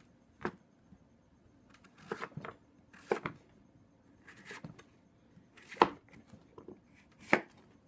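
Chef's knife cutting through a peeled butternut squash and striking a wooden cutting board: about eight irregular knocks, the two loudest near the end.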